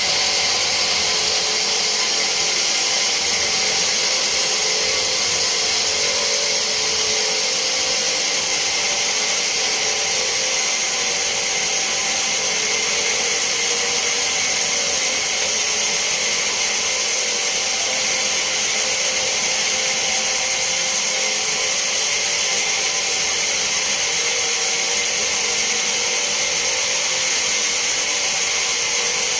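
Sawmill band saw cutting lengthwise through a large teak log: a steady, high hiss of the blade running in the wood.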